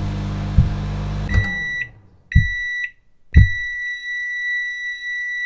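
A bass-heavy dubstep beat with thudding kick hits cuts off about a second in. Two short high electronic beeps follow, the second landing with a deep falling bass hit, then the same beep comes back as one long steady tone with another bass hit at its start.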